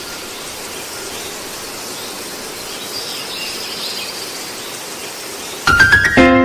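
Steady outdoor hiss with faint bird or insect chirps and no machine engine. Near the end, music starts with a quick run of rising notes.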